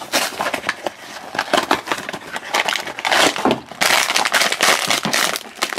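Cardboard blind box being opened and a foil blind bag taken out and handled: scratchy rustling and crackling, turning into dense continuous crinkling for the last two seconds as the bag is squeezed.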